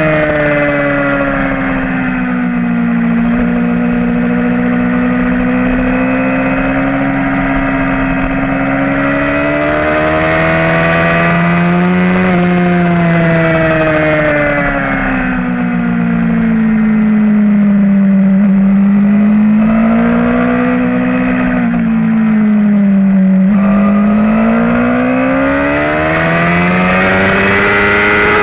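2011 Suzuki GSX-R750 inline-four engine through a full Yoshimura exhaust, heard onboard at race pace. Its note rises and falls repeatedly with the throttle and gear changes, with sharper drops about twelve seconds in and again near twenty-three seconds, over steady wind rush.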